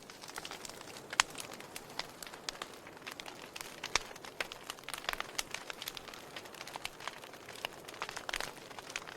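Wood fire crackling: irregular sharp pops and snaps over a soft hiss, the loudest about a second in and again about four seconds in.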